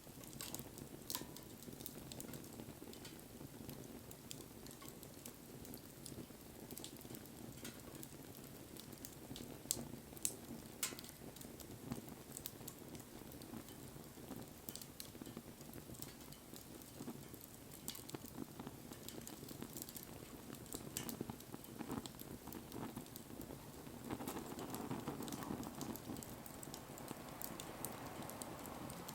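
Wood bonfire burning, with a steady low rustle of flames and scattered sharp crackles and pops from the burning wood; the fire grows a little louder about 24 seconds in.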